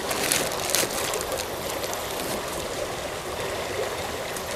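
Shallow creek water running steadily over rocks, with a few short crackles of plastic being handled and cut in the first second or so as a hard plastic reagent packet is snipped open inside a bag.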